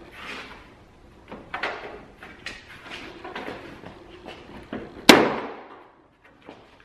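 Plastic hood bulge trim on a 2018 Toyota Tundra being pulled off by hand: its retaining clips and plastic creak and click, then give one loud sharp snap about five seconds in.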